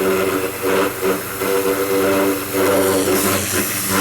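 Ryobi 1600 PSI electric pressure washer running with the trigger held: a loud hiss of the water jet over the steady hum of the pump motor.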